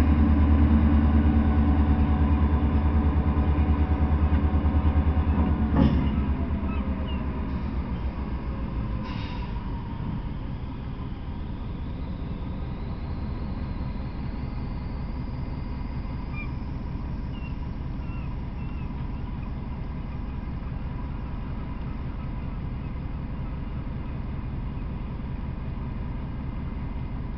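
Norfolk Southern diesel locomotive engine running with a loud, steady rumble. About six seconds in there is a sharp clank, and a lighter one follows a few seconds later. After the first clank the engine drops to a quieter steady drone as the train stands.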